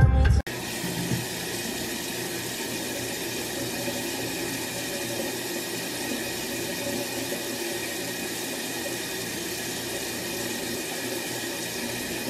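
Music cuts off abruptly about half a second in, giving way to the steady, even hiss of a bathroom tap running.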